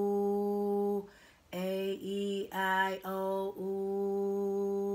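A woman chanting the vowels A-E-I-O-U on one steady pitch as a chakra-clearing meditation chant, each vowel held and the last one drawn out long. About a second in she breaks off briefly, then starts the run of vowels again.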